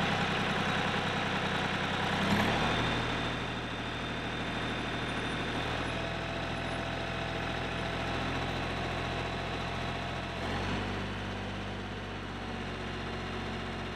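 Kioti CK-series compact tractor's diesel engine running at idle while its hand throttle is set, its speed shifting about two seconds in and again near the end.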